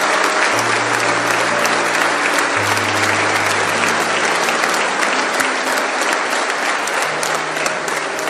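Large audience applauding steadily, with background music of sustained low notes underneath.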